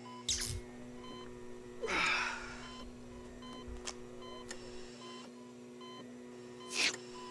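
Short electronic beeps at irregular intervals over a steady electrical hum, with three brief rustling swishes, the longest and loudest about two seconds in.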